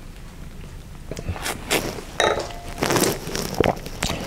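A person sipping and slurping a mouthful of liqueur from a tasting glass, drawing air through it in several short noisy pulls, with a few small clicks of the mouth and glass.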